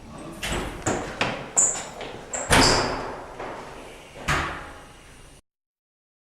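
A run of about seven irregular bangs and knocks, like a door being banged or slammed, the loudest about two and a half seconds in; the sound then cuts off suddenly.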